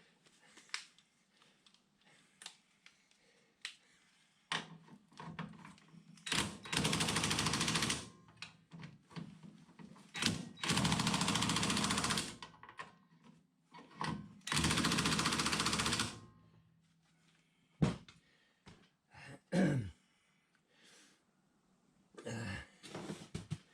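Power wrench, most likely an impact wrench, running bolts down in three bursts of about two seconds each, with clicks and knocks of tools and parts between them. The bolts are then brought to 65 Nm.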